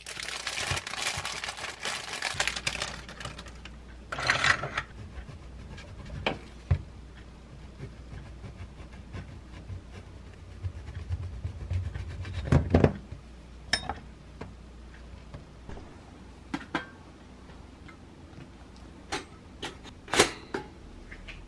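Plastic bread bag crinkling as a bagel is unwrapped, then a knife sawing through the bagel on a wooden cutting board. Near the end there is a sharp click as a pop-up toaster's lever is pressed down.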